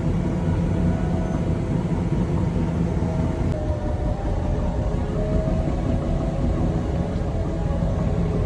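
Bulldozer's diesel engine running steadily while it pushes and strips topsoil, a dense low rumble with faint high whining tones over it.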